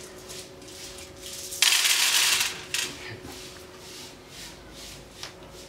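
A handful of cowrie shells rattled and cast onto a glass-topped table for divination: a clatter lasting about a second, followed by a couple of lighter clicks.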